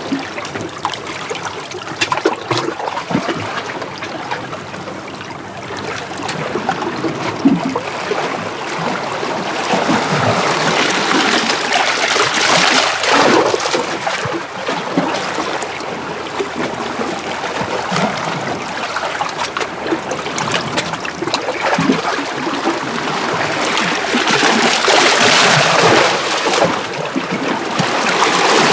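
Small sea waves washing in and out over shoreline rocks, splashing and trickling as water runs back off the stones. The wash swells louder twice, about a third of the way in and again near the end.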